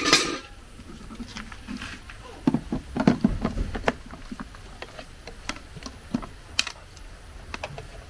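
Knocks and clicks of a plastic blender jar of chopped tomatoes being handled and fitted onto its base: one loud knock at the start, a cluster of clatters a few seconds in, then a few sharp single clicks.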